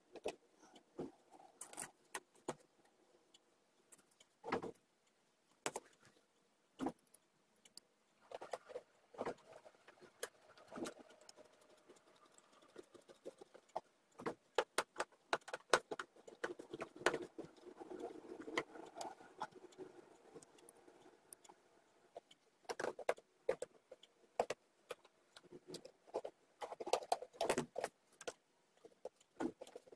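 Small metal hardware being fitted by hand to a wooden box lid: scattered sharp clicks and light metal clinks as the parts are handled and set, with a screwdriver turning small screws into the wood. The clicks come thickest around the middle and again near the end, with a faint squeak among them.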